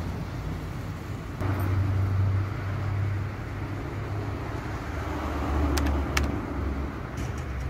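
Outdoor street ambience: a steady low rumble of road traffic that swells twice, with two faint clicks about six seconds in.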